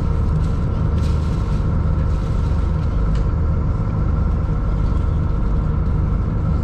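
Cruise boat's engines droning steadily, heard from inside the passenger cabin: a continuous low rumble with a faint steady whine above it.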